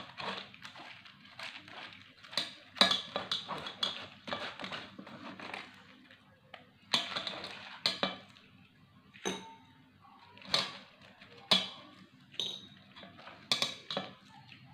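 Metal mesh strainer knocking and scraping against a glass bowl as tamarind pulp is pressed through it by hand: a series of irregular clinks and taps, a few with a short ringing tone.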